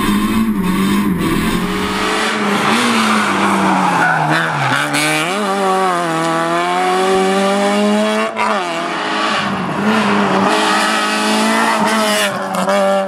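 Citroën Saxo VTS rally car engine revving hard, its pitch climbing and dropping repeatedly as it accelerates and changes gear through the corners.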